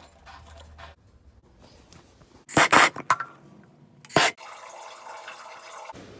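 Plumbing water rushing out in two short, loud gushes, then running on as a steady hiss.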